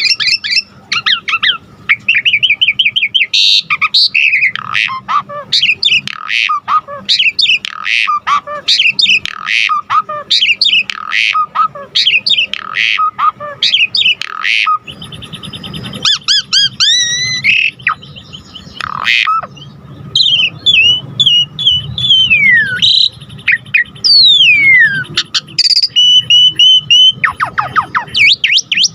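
Javan pied starling singing a loud, varied song of rapid chirps, squawks and whistles, the full repertoire of imitated calls known as 'isian'. Toward the end come several long falling whistles and a briefly held steady whistle.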